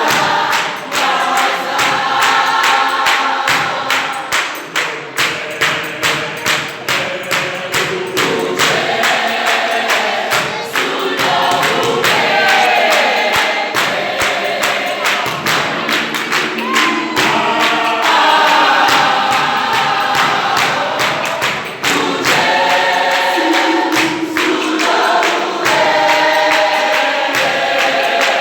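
A choir of voices singing in harmony, with a steady beat of sharp knocks under the singing.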